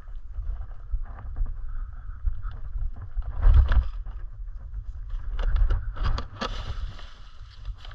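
Wind rumbling on the microphone and the tyre of a one-wheeled electric board rolling over dirt and twigs, with louder crunching scrapes about three and a half seconds in and again around six seconds in.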